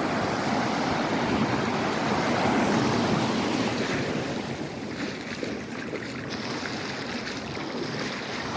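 Sea surf breaking and washing up over the shallows, a steady rushing wash that swells over the first few seconds and eases after about four seconds.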